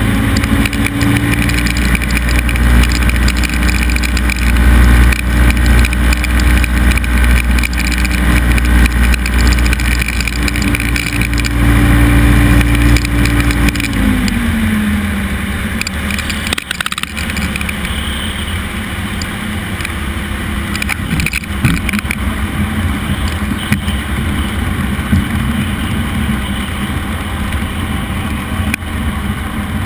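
Cessna 172 single-engine propeller plane heard from inside the cabin: a steady engine and propeller drone that drops in pitch about halfway through as power comes back toward idle for landing. A lower, rougher drone follows, with a couple of brief knocks.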